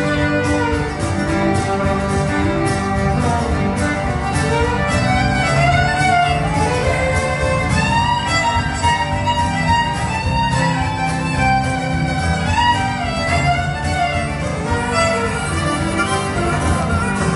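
Live country-gospel band playing an instrumental break with no singing: strummed acoustic guitar under a lead melody that slides and bends in pitch.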